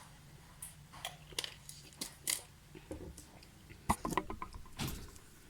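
Broken glass shards being wiped and gathered off the floor by hand: irregular small clicks and crunches, with a cluster of sharper clinks about four seconds in.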